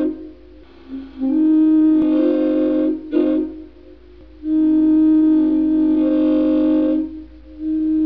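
Train air horn sounding a chord of several steady tones in separate blasts: a long blast, a short one, another long one, and a fourth starting near the end.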